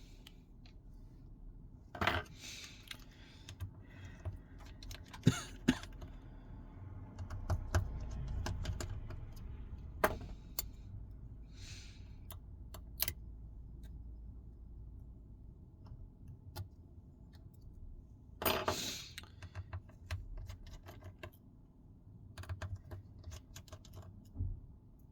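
Small metal tools and tiny screws clicking and clattering as a smartphone's screws are removed and set down, with an occasional longer rattle.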